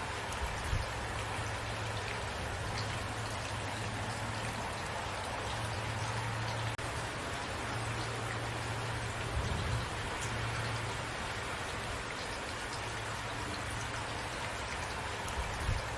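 Steady rain falling, with individual drops pattering on a surface and a few brief low thumps.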